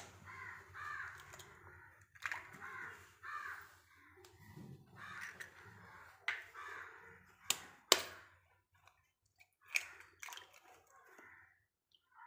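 Eggs knocked against the rim of a bowl to crack them: a few sharp knocks, two close together about halfway through and another about two seconds later. Crows caw repeatedly in the background.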